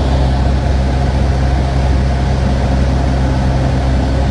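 Steady low drone of an aircraft's engine, heard from inside the cabin.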